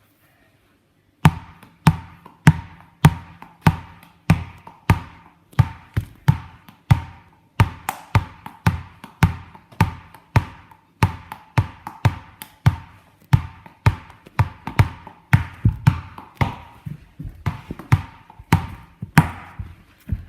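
Something hard being tapped or struck over and over, about two strikes a second, each a sharp knock with a brief ringing tone that dies away quickly.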